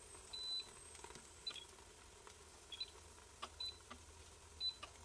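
Five short high beeps from an induction hob's touch controls being pressed, about a second apart. Faint sizzling of potatoes frying under a glass lid runs beneath.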